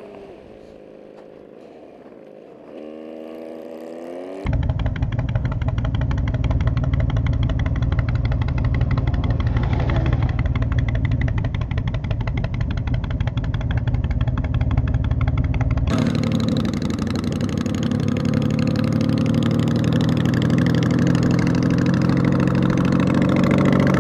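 Honda Magna V4 motorcycle engine running at road speed, with wind rushing over the microphone. The engine rises in pitch about three seconds in. The sound jumps abruptly louder a little later, and changes again abruptly around two-thirds of the way through.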